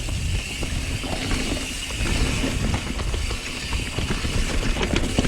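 Mountain bike climbing a steep dirt trail: a steady low rumble of tyres, frame and drivetrain through the rider's camera, with scattered small clicks and rattles.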